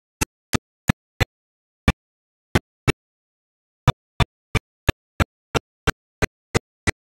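A string of short, sharp clicks with dead silence between them. They come mostly at an even rate of about three a second, with a pause of about a second near the middle.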